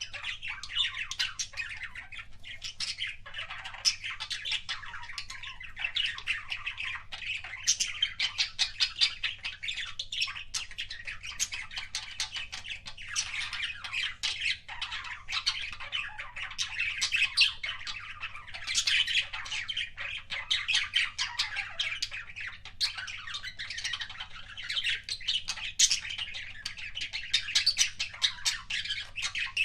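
Budgerigars chattering without pause: a dense stream of rapid clicks, squawks and chirps.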